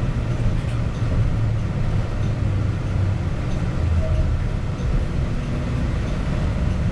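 Cabin noise of a moving Viva Blue transit bus: a steady low rumble of engine and road.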